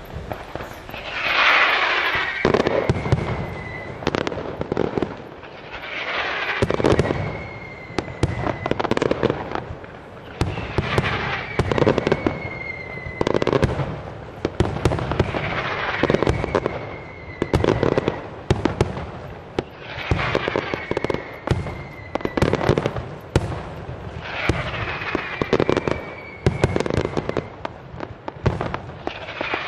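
Aerial fireworks display going off in waves about every four to five seconds. Each wave is a whooshing launch with a whistle that slides slightly down in pitch, followed by rapid sharp bangs and crackling bursts.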